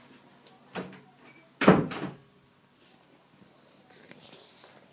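A door knocking and bumping: a light knock, then a loud thud about a second later. A soft rustle follows near the end.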